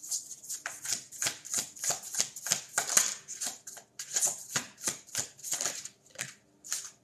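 A tarot deck being shuffled by hand, the cards slapping and riffling against each other in quick, uneven strokes that stop about six seconds in.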